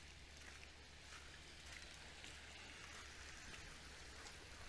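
Faint hissing with scattered small ticks and crackles of water trickling and draining among wet shoreline rocks, over a low steady rumble.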